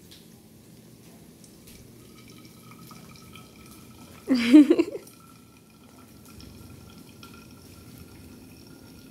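Brewed coffee trickling from a cloth coffee strainer into a thermos flask, a faint steady dribble with a thin steady tone. About four seconds in comes one brief, loud vocal sound, under a second long.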